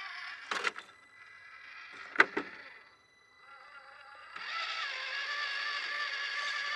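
Electric drive of an FMS FCX24 K5 Blazer 1/24-scale RC crawler whining as it climbs over rocks, with two sharp knocks in the first few seconds. After a short lull the whine comes back steadier and louder.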